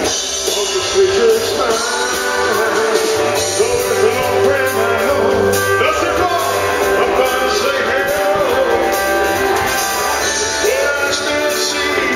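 A male singer singing live into a handheld microphone, backed by a live band with electric guitars and drums.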